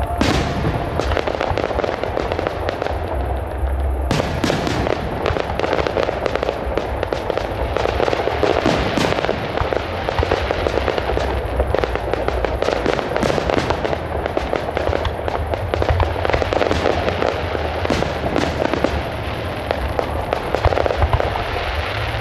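Fireworks display: aerial shells bursting in a rapid, unbroken string of bangs and crackles, starting with one loud bang.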